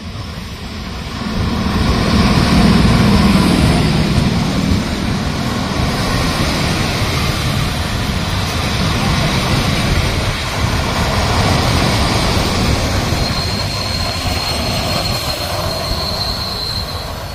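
A historic passenger train hauled by an E656 electric locomotive rolling past close by. It is loudest about two seconds in, then holds a steady rumble as the old 'centoporte' carriages pass. From about thirteen seconds in, a high, steady brake squeal joins it as the train slows into the station.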